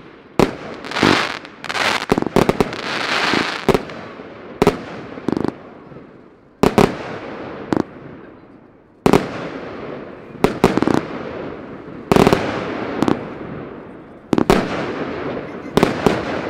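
Geisha Tournament fireworks compound box firing: loud shell bursts go off one after another and in quick pairs, about a dozen and a half bangs, each trailing off in a fading hiss of effects.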